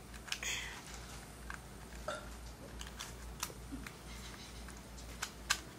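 Plastic pieces of a Fangshi ShuangRen 54.6 mm 3x3 speed cube clicking and scraping as the cube is twisted partway and pried apart by hand to pop a piece out. The clicks come singly and unevenly, the loudest one near the end.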